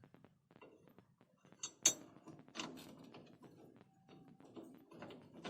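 Hand tools working on metal: scattered clicks, knocks and rattles, with one sharp metallic strike about two seconds in.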